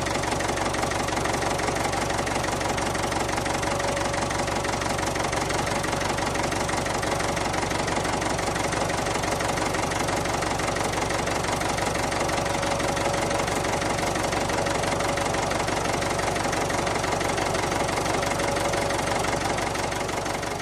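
Tractor engine running steadily at idle, with a rapid even beat of firing pulses and a steady hum.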